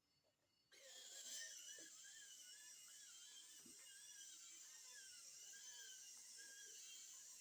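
Small electric motor of a homemade robot vacuum switching on suddenly under a second in and running with a high whine that wavers up and down in pitch.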